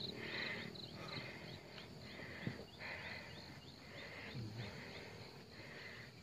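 Insects chirping faintly in a steady rhythm, about one chirp a second, with a faster ticking pulse above it.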